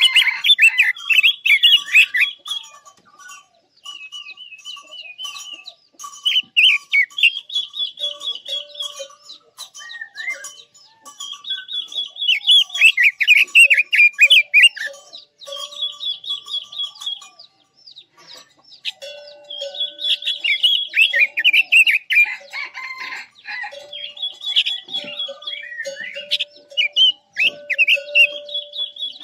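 Red-billed leiothrix (Quế Lâm) singing from a trap cage as a decoy: phrase after phrase of rapid warbling notes and quick trills, with short pauses between songs.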